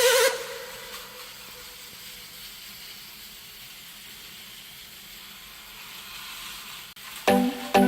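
Battery-powered Plarail toy train running on plastic track: a steady whirring hiss that swells slightly near the end.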